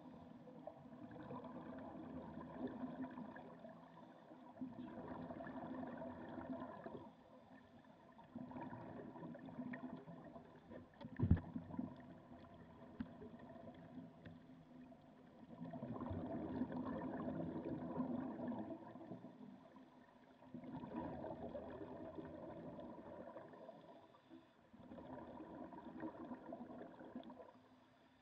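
Underwater bubbling from snuba divers exhaling through their regulators, coming in bursts every few seconds. One sharp knock about eleven seconds in.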